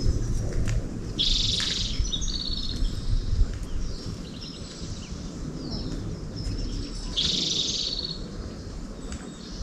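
A bird singing twice, about six seconds apart: each time a loud harsh high burst followed by a quick trill, with thin high chirps in between, over a low rumbling noise.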